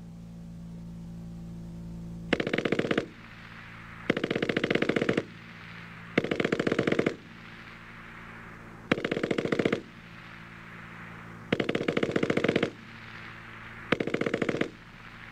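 German MG-34 7.92 mm machine gun firing short rapid bursts of about a second each. There are six in a row with gaps of one to two seconds, and a seventh starts at the very end.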